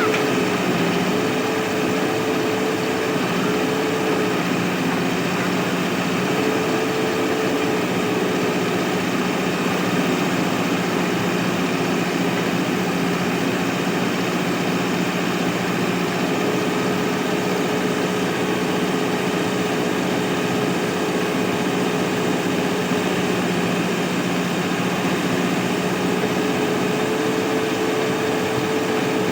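Mahindra backhoe loader's diesel engine running steadily as a constant drone, its pitch holding even, with a higher tone in the note that fades and returns a few times.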